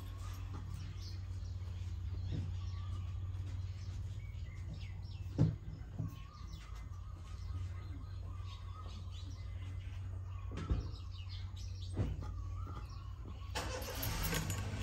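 Steady low background hum with faint bird chirps and a few short knocks; a louder rushing hiss sets in near the end.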